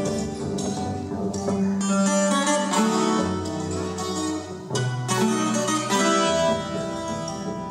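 Live Colombian Andean string music: tiples and requinto playing quick plucked and strummed notes over a double bass.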